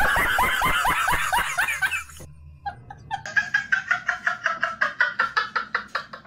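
Rapid laughter in quick pulses, about six a second. It is loud, with each pulse falling in pitch, for the first two seconds. After a brief drop it goes on as quieter, evenly spaced pulses.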